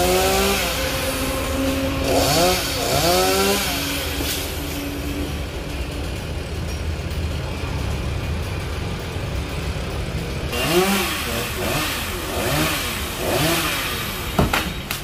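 Two-stroke chainsaw engine revved up and down in short bursts: two near the start and several more in the second half, with a steady tone under the first half. A single sharp crack near the end.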